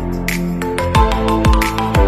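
Electronic background music: held synth chords over a deep kick drum that comes in about every half second in the second half.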